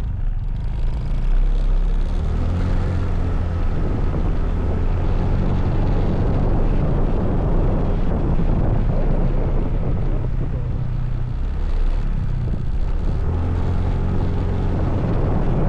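Motorcycle engine running while the bike rides along, its note rising with the throttle about two seconds in and again near the end, with wind rushing over the camera microphone.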